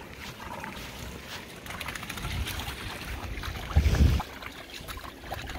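Puppies splashing and paddling in shallow water in a plastic kiddie pool, with light scattered splashes. Wind buffets the microphone, in a loud low gust about four seconds in.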